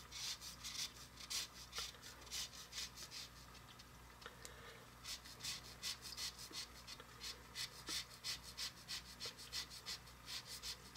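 Lemon rubbed down a metal rasp grater, zesting it: a quick series of short scraping strokes, about three a second, with a brief pause about four seconds in.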